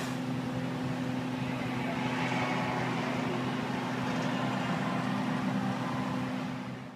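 A truck's engine running steadily at the worksite, a constant low hum with a few fixed tones, fading out near the end.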